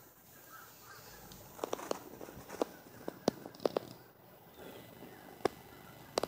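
Scattered sharp clicks and taps at irregular intervals, in small clusters, over a faint steady outdoor background.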